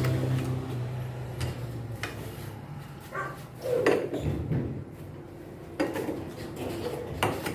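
Scattered metallic clinks and knocks of tools and washing-machine parts being handled during reassembly, after a steady hum that fades out within the first second.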